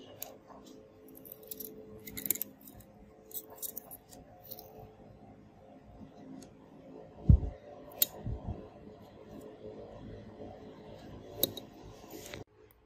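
Light clicks and scrapes of tweezers and a small screwdriver against a Samsung Galaxy Note 9's logic board and frame as the board is pried out, with two dull thumps about a second apart around the middle.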